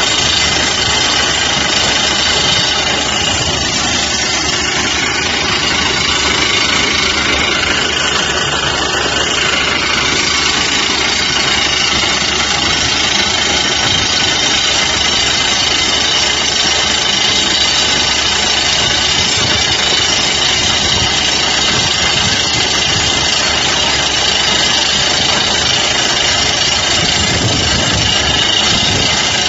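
Excavator-mounted PD-90 rock drill hammering its rod into rock, a dense, fast, steady percussive rattle over the running diesel engine of the carrier excavator.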